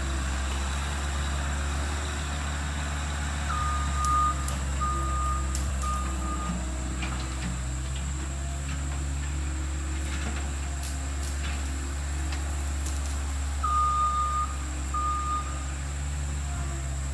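Skid steer engine running steadily while its backup alarm beeps as it reverses: three beeps about three and a half seconds in, then two more near the end.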